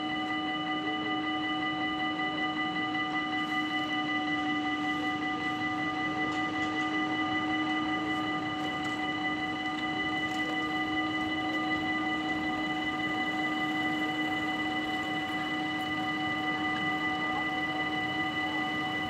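Dutch level-crossing warning bells ringing steadily and without a break, several bells sounding together on fixed pitches: the crossing is closed and a train is due.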